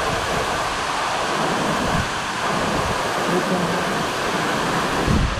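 Waterfall rushing in a steady, loud roar of falling water.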